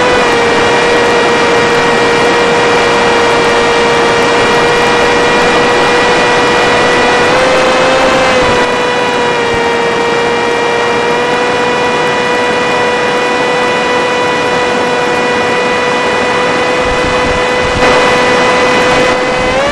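Electric motor and propeller of an FPV Skyfun flying wing running at steady cruise throttle, a steady whine over rushing wind. The pitch rises briefly a little over a third of the way in and again at the very end, as the throttle is nudged up.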